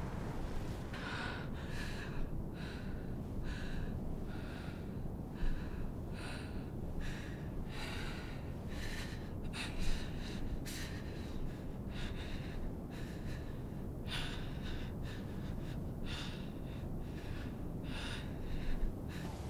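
A woman's heavy, ragged breathing: irregular gasping breaths, one or two a second, over a low steady background hiss.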